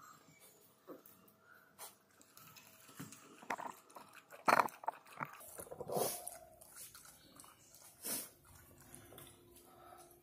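A dog lapping liquid from a plastic bowl: uneven wet clicks and slurps, with a few louder sharp sounds.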